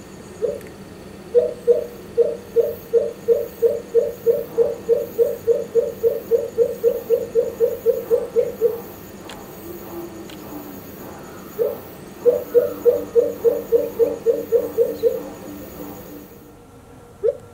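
Male pheasant coucal calling: a long run of deep hooting notes that speeds up as it goes, then a second, shorter run. About ten seconds in, a second pheasant coucal answers with a much lower, falling call.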